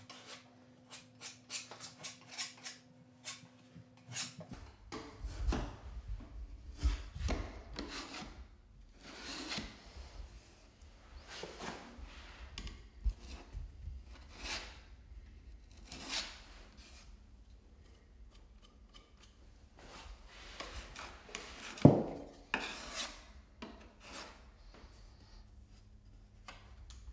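Metal putty knife scraping and spreading putty over wooden door casing in a long series of short strokes, with one sharp knock late on.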